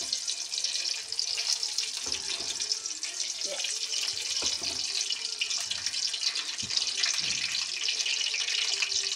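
Large chicken pieces frying in hot oil in a karahi: a steady, dense sizzle with fine crackling, and a few faint knocks as the pieces are handled.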